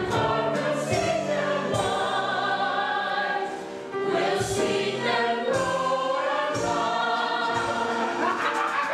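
Young cast singing together as a chorus in a stage musical number.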